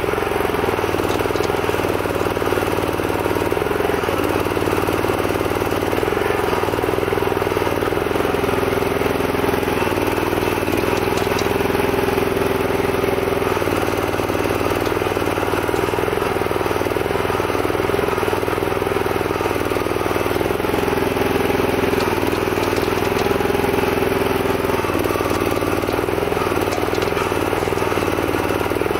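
Single-cylinder petrol engine, an 11 hp Honda-type, running steadily as it drives the hydraulic gear pump of a homemade mini excavator while it digs. Its note shifts up and down every few seconds as the boom and bucket are worked.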